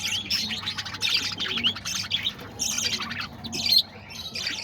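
A flock of aviary parakeets chattering: many quick, overlapping high-pitched chirps and squawks.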